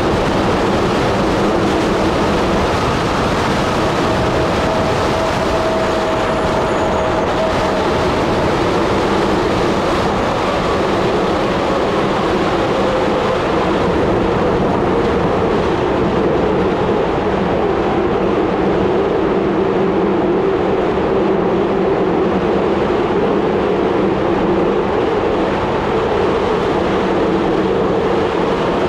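Steady rush of wind on the microphone and tyre rumble from a bicycle descending a paved road at speed, with a faint hum underneath that drifts slightly in pitch.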